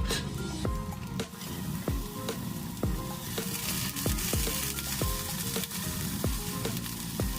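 Food sizzling in a hot frying pan, the sizzle swelling about three seconds in, over background music with a steady beat.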